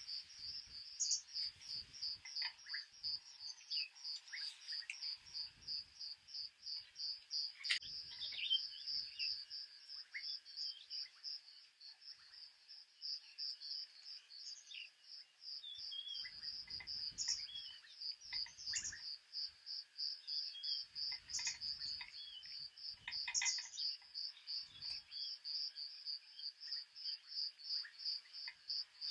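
An insect, cricket-like, chirping steadily at about three pulses a second, with short bird chirps scattered through it and a few soft low rumbles now and then.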